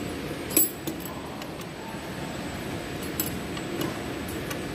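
Metal clinks of an Allen key working on a steel clamp block: one sharp clink about half a second in, then a few lighter ones, over a steady workshop hum.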